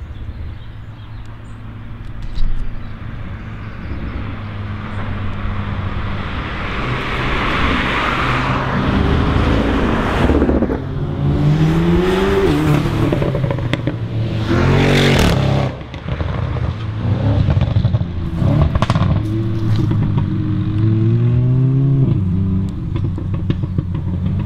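Audi cars accelerating past one after another, their engines revving up through the gears in rising sweeps over a steady low rumble. The loudest rushes come as cars go by about ten and fifteen seconds in.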